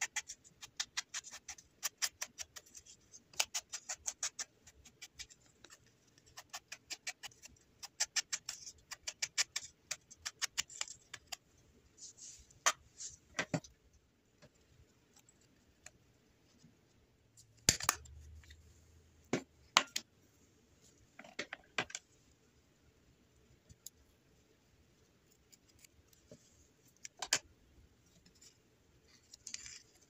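Rapid, scratchy taps and strokes of a small tool worked over a paper tag. Later a metal hand-held hole punch snaps through the tag twice, about two seconds apart, with a few lighter paper clicks and rustles after.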